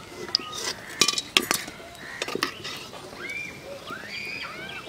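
Steel slotted spoon clinking against a metal wok and an aluminium colander as fried fish are lifted out of the oil: several sharp metallic clinks in the first half. Birds chirp in the second half.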